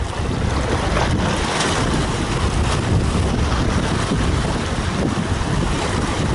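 Small sea waves washing and splashing over rocks at the shoreline, with wind buffeting the microphone as a steady low rumble.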